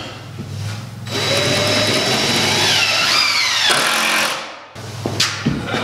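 Power drill run into the wooden wall framing for about three seconds, its motor whine sagging in pitch near the end as it takes load. A couple of sharp knocks follow near the end.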